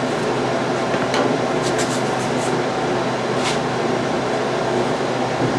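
Steady mechanical hum at one pitch, with a few faint light clicks about one, two and three and a half seconds in.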